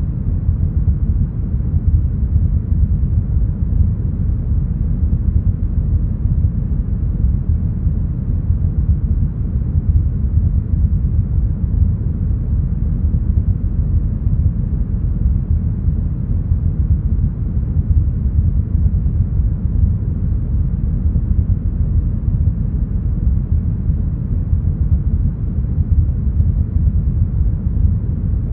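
Steady deep brown noise, an even low rumbling hiss with most of its weight in the bass and almost nothing in the treble, unchanging throughout.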